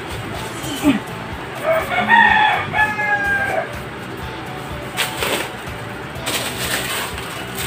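A rooster crowing once, a single call of about two seconds starting a couple of seconds in, with a short rising opening and a long held note.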